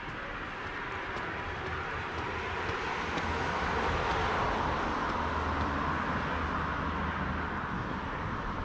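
A passing vehicle's rumble, swelling to its loudest about four seconds in and then fading, with a low steady hum under it.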